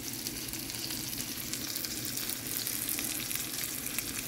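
Seasoned pork roast searing in olive oil in a pan: a steady sizzle with many fine crackling pops.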